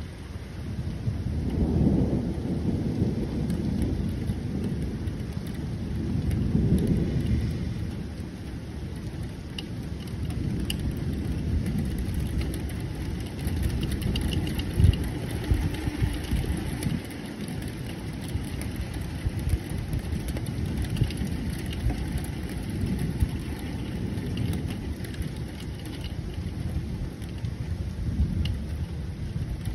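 Thunderstorm: low rolling thunder swells up twice and fades over a steady hiss of rain, with a short sharp crack near the middle.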